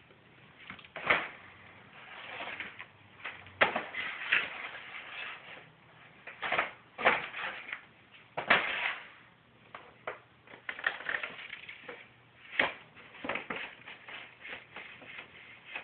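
Crumpled brown kraft paper crinkling and rustling in irregular bursts as a cat moves and pounces underneath it, with several sharp, loud crackles.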